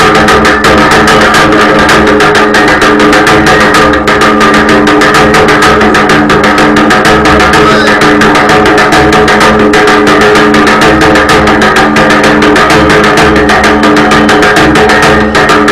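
Loud live folk music: a barrel drum beaten in a fast, steady rhythm under a held, droning melody.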